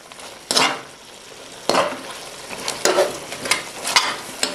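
Metal slotted spatula stirring and scraping mutton karahi in a karahi-shaped pressure cooker, with several scraping strokes over a steady sizzle of meat frying in oil. This is the bhunai stage, browning the meat over high heat.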